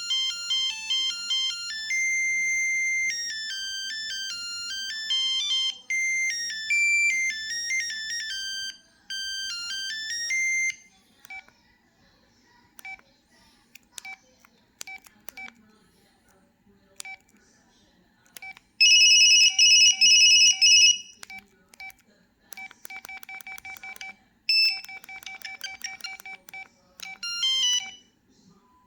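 LG Cyon mobile phone playing its built-in ringtones through its small speaker. A fast electronic melody runs for about the first ten seconds, then comes a stretch of faint short beeps and clicks. From about nineteen seconds in a loud rapid two-tone electronic trill rings in bursts, the longest lasting about two seconds.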